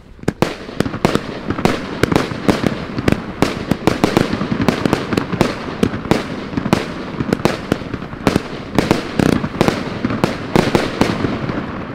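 Consumer firework batteries firing together: a rapid, irregular string of sharp bangs over a continuous hiss. It starts just after the beginning and tails off near the end.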